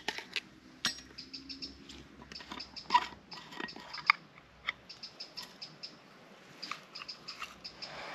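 Light metallic clinks and taps, one briefly ringing about three seconds in, as a steel pot is handled on a tripod stand and a brass Trangia spirit burner is set down beneath it. Short, high chirps repeat throughout in the background.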